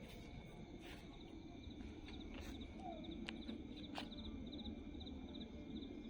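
Night insects: crickets chirping in short repeated bursts over a steady high insect drone, with a few faint clicks and a brief falling call about halfway through.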